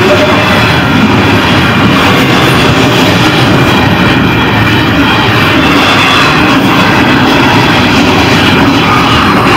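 Double-stack container freight train rolling past: a loud, steady rumble and rattle of wheels and cars on the rails.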